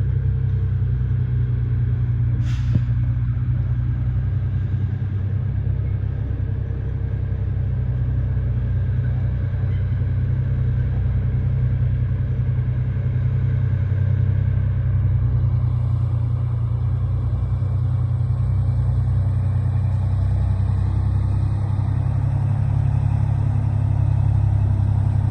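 Engine of heavy construction machinery running steadily with a deep, low hum, and a brief sharp click about two and a half seconds in.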